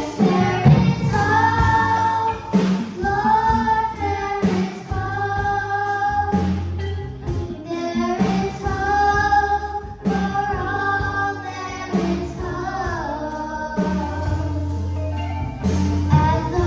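Children's gospel choir singing long held notes together, with a bass line and drum hits accompanying them.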